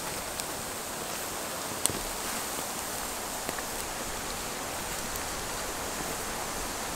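Steady rushing of river water, with a few sharp clicks, one louder about two seconds in.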